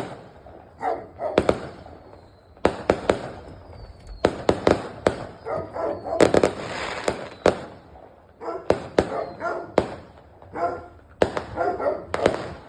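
Fireworks going off in an irregular run of sharp bangs, with a dog barking in short bursts between them.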